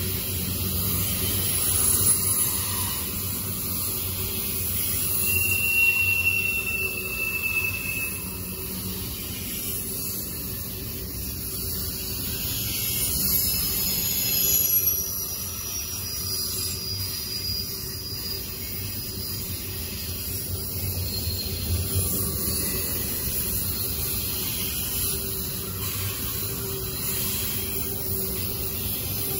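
CSX double-stack intermodal train rolling past: steady rumble and rolling noise of steel wheels on the rails, with brief high wheel squeals about six seconds in and again around thirteen to fifteen seconds.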